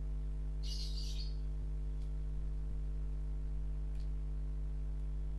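Steady low electrical hum from the powered washing-machine control board and bulb tester, with a short high chirp about a second in and a couple of faint ticks later.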